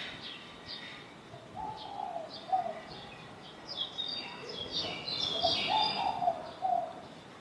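Pigeons cooing in two runs of low, wavering phrases, the first about a second and a half in and the second around the middle. Small birds chirp high above them throughout, busiest in the second half.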